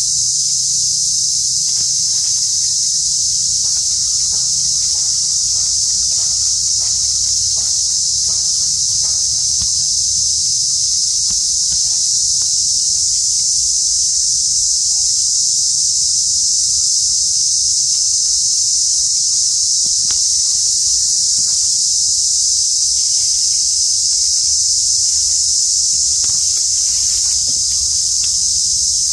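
A loud, steady, high-pitched insect chorus in tropical forest, with faint short ticks and rustles scattered through the first ten seconds or so.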